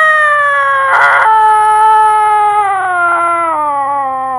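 Dog howling: one long drawn-out howl that slowly falls in pitch, with a brief rough, breaking patch about a second in.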